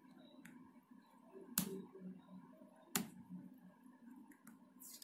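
Faint clicks and taps of fingers handling a Redmi Note 7 Pro smartphone, two sharper clicks about a second and a half apart among a few softer ones, over quiet room tone.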